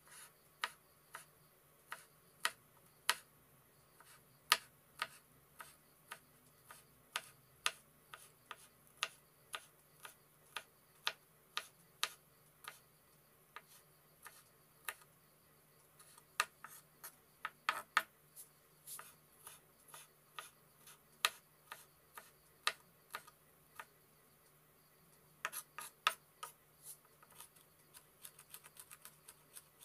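Kitchen knife chopping garlic on a wooden cutting board: sharp knocks of the blade on the board about twice a second. After a short pause a few seconds before the end, the knocks come as a quick cluster and then a fast run of rapid chops.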